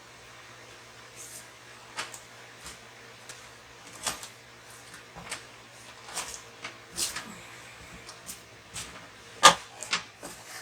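Irregular knocks and clicks of objects being handled and set down, the loudest about nine and a half seconds in, over a steady low hum.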